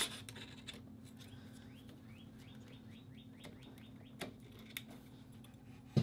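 Faint handling noises of a DDR4 RAM stick being lined up in a motherboard slot: light scraping, a quick run of faint high squeaks, and a few small plastic clicks later on, over a low steady hum.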